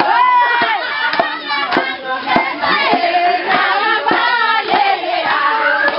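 A group of women singing together in unison, with sharp hand claps on a steady beat, a little under two a second.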